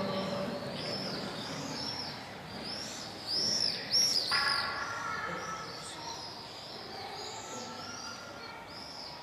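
Small birds chirping, short high calls repeated many times, a little louder around the middle.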